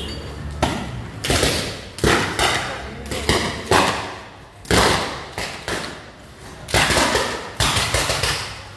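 Burning, arcing overhead power cables giving off an irregular string of sharp bangs and crackles, about once or twice a second, each with a short hissing tail.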